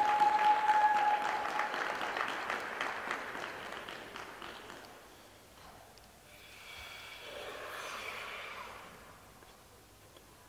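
Applause from a small audience in an ice arena, with one steady held note from a spectator near the start. The clapping fades away over about five seconds.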